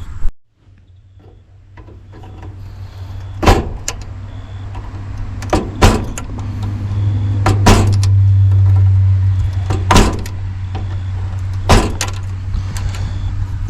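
About six sharp clicks and snaps, a second or two apart, from hands and tools working inside a heat pump's outdoor unit as its defrost control board is changed, over a low steady hum that swells louder in the middle.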